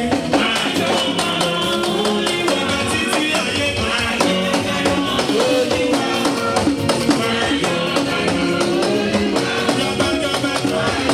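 Church praise music with a steady beat, shaken percussion and singing.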